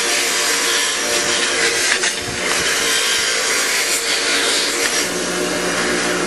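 Power wire brush running steadily against a metal plate, its motor hum mixed with a harsh scraping hiss as it scours corrosion off the ignition coil-pack computer plate so that the plate will ground properly.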